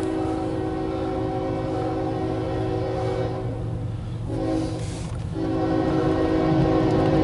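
CSX locomotive's air horn sounding a chord in the grade-crossing pattern: a long blast that breaks off about three seconds in, a short blast, then another long blast, over the low rumble of the approaching locomotive.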